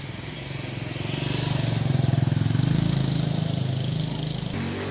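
A motor vehicle's engine passing by, growing louder to a peak about two seconds in and then fading away near the end.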